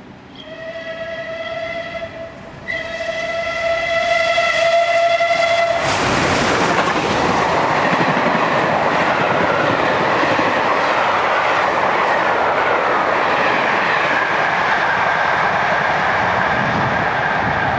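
Steam locomotive Tangmere, a Bulleid Battle of Britain class Pacific, sounds two whistle blasts as it approaches at speed, a short one and then a longer one. A few seconds in, the train runs past with a loud rush of wheels and coaches on the rails.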